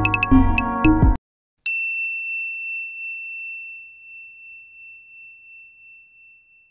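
Background music with a beat cuts off suddenly about a second in. A moment later a single high bell-like ding rings and slowly fades away.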